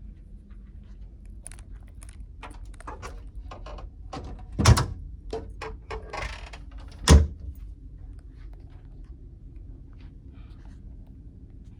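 A run of light clicks and knocks with two heavy thumps about two and a half seconds apart, over a steady low rumble.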